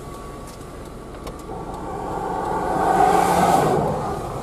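A vehicle driving past on the road: engine and tyre noise swells over about two seconds, is loudest a little past the middle, then fades away.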